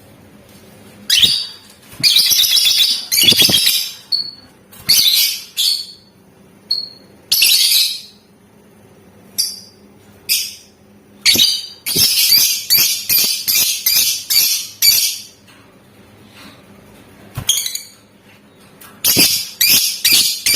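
Lovebirds chattering in bursts of shrill, high-pitched calls with short gaps between them, building to a long unbroken chattering run about twelve seconds in: the 'ngekek' chatter used to provoke other lovebirds into singing.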